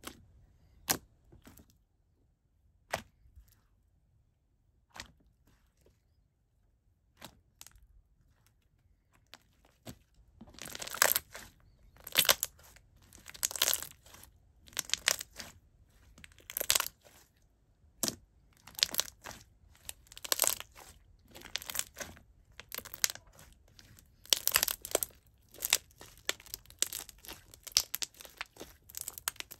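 Watery, jiggly milky-clear slime squelching as hands press and squeeze it. There are only sparse single pops for the first ten seconds. Then come quick, repeated wet squishes and clicks, about two a second.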